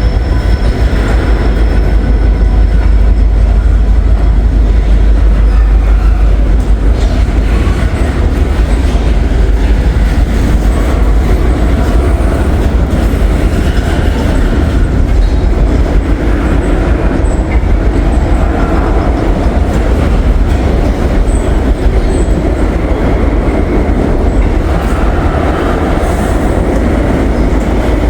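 Freight train rolling by close at hand: a loud, steady rumble of wheels on the rails that runs on without a break.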